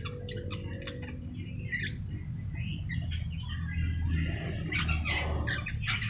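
Javan myna (jalak kebo) calling in a busy run of short chirps, clicks and squeaky notes, thickest in the second half, over a steady low background rumble.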